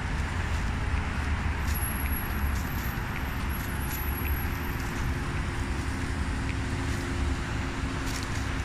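Steady city road traffic noise, with a faint steady low hum joining about three seconds in.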